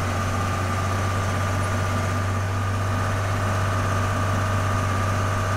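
Tractor engine running at a steady speed, heard from inside the cab: a constant low hum with a fainter, even whine above it.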